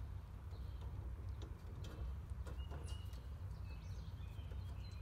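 Faint scattered clicks and taps of hands handling the brass Schrader service valve on an air-conditioning condensing unit, over a steady low rumble, with a few short bird chirps.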